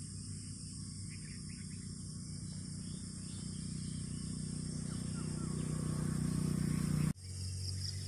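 Outdoor ambience: a steady high-pitched insect drone over a low rumble that grows gradually louder. Both break off abruptly for an instant about seven seconds in, then carry on.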